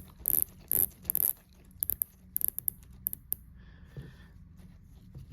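Unidirectional ceramic dive-watch bezel being turned by hand, giving a run of sharp ratchet clicks, about two to three a second and then in quicker flurries, which die away after about three seconds.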